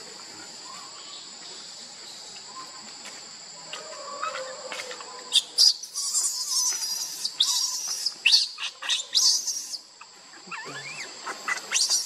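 Baby macaque giving high-pitched distress squeals and shrieks, a run of rising-and-falling cries about halfway through, while its mother handles it. Before the cries and after them a steady high insect drone is heard.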